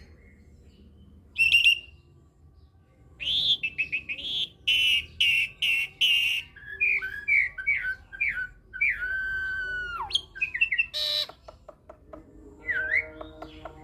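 Caged hybrid Jalak Nias × Jalak Suren starling singing a varied song. It gives bursts of harsh calls, then a run of quick chirped notes and a long whistle that drops sharply at its end. A loud call follows about eleven seconds in.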